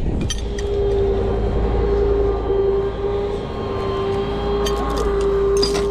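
Rollback tow truck's engine running with a steady, unbroken whine over a low rumble. A few sharp clicks and rattles come just after the start and again near the end.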